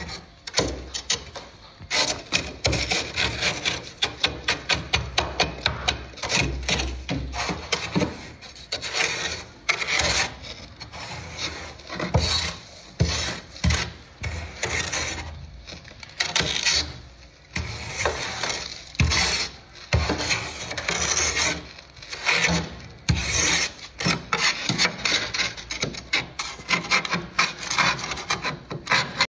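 A scraper scraping thick frost off the inside of a freezer, in runs of quick repeated strokes with short pauses between.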